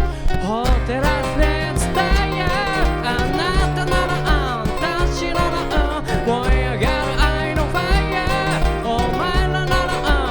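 Acoustic guitar and singing voice, with looped layers built up on a looper pedal: a regular low thumping beat and bass notes under the strummed guitar.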